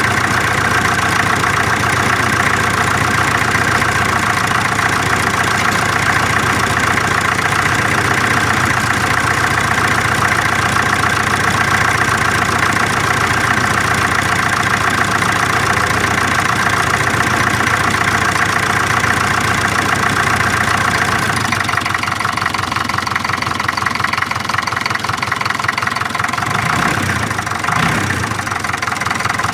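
Land Rover Series 3 engine idling steadily, freshly serviced. About two-thirds of the way through it drops a little in level and its low end thins out.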